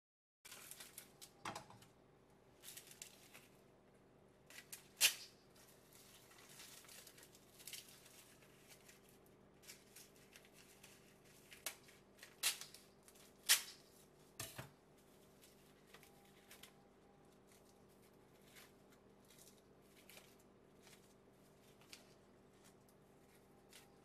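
Quiet kitchen handling: scattered light taps, clicks and crisp crinkling as sheets of dried nori are picked up and laid on opened saury fillets on a plastic cutting board. A faint steady hum runs underneath, and a few sharper taps stand out.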